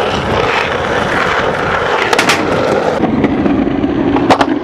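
Skateboard wheels rolling over concrete, a steady rumble, with sharp clacks of the board about two seconds in and again near the end, when a rider falls beside a ledge.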